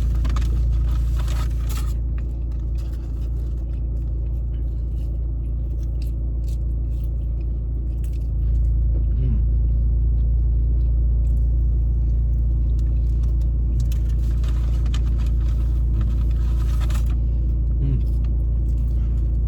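A person eating a burger: scattered small clicks and crinkly rustles over a steady low rumble.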